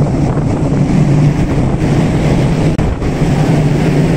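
Wind buffeting the microphone on an open ship deck, over a steady low hum.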